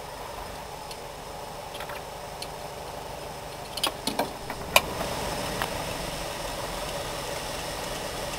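A few sharp metal clicks and knocks about four seconds in, as things are handled inside a metal compartment on a narrow-gauge steam locomotive's running plate, over a steady mechanical hum.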